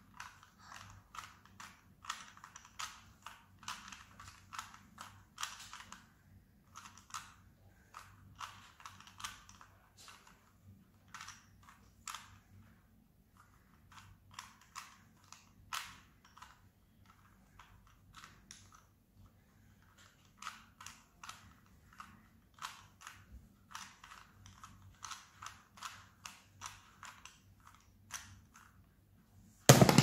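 Plastic 3x3 Rubik's cube being turned by hand: its layers click in quick runs of turns with short pauses between. Near the end a loud knock as the cube is set down and both hands slap onto the tablet timer to stop the solve.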